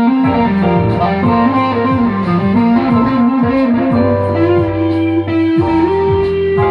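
Music: a moving melody over a bass line, settling into long held notes about four and a half seconds in.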